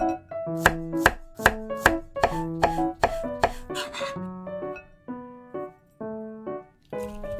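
Knife chopping vegetables on a cutting board, a regular run of sharp cuts about two or three a second that stops about four seconds in. Gentle piano background music plays throughout.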